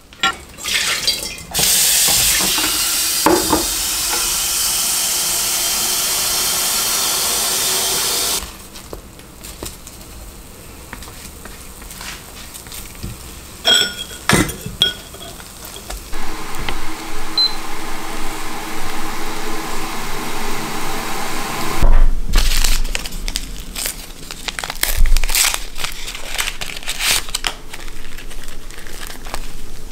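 Kitchen sounds while cooking: a steady hiss for about six seconds, then clinks of dishes and glass, and a busy run of knocks and crackles in the last third.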